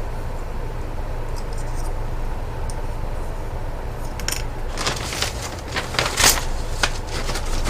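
Small plastic Gunpla kit parts clicking and rattling as they are handled and pressed together, in scattered clusters from about four seconds in, over a steady low hum.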